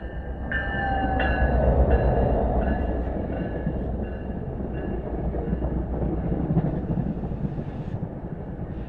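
NJ Transit PL42AC diesel-electric locomotive passing close by, its engine loudest about two seconds in. The steady rumble of its passenger coaches rolling past on the rails follows.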